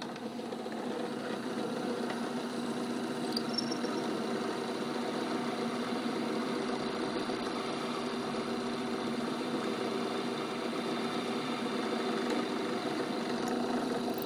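Bench drill press motor running steadily while its small bit bores into a dental stone cast.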